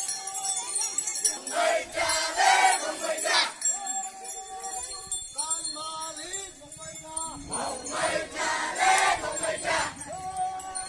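Small bells jingling throughout while a group of voices chants together in long held notes, with louder, fuller passages about two seconds in and again near eight seconds.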